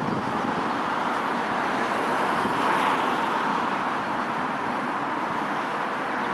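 Airbus A380-861's four Engine Alliance GP7200 turbofans heard from the ground as the airliner comes in on final approach: a steady jet noise with a slight swell about halfway through.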